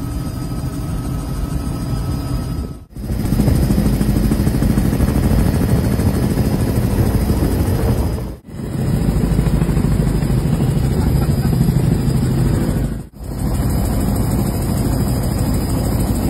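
Helicopter cabin noise: a loud, steady drone of engine and rotor, in several clips cut together. The sound drops out briefly at each cut, about three, eight and thirteen seconds in.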